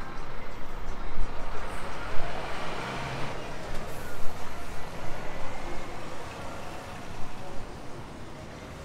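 Street traffic with a large bus pulling away: a rush of engine and road noise swells to a peak about three seconds in, then fades, over a steady low rumble.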